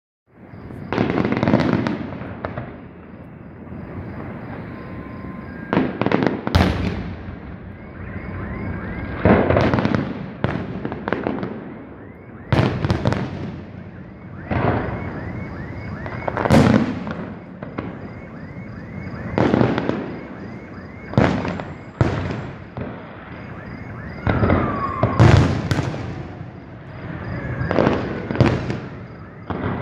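Aerial fireworks shells bursting in a display: a heavy boom every one to three seconds, each echoing away, with crackling between the bursts.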